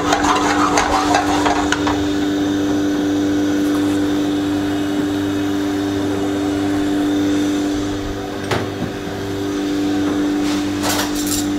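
Steady electric motor hum of kitchen ventilation equipment. In the first two seconds a spoon and a non-stick pan clatter on the gas range as potato cream goes into the pan, and there are a couple of short clicks later on.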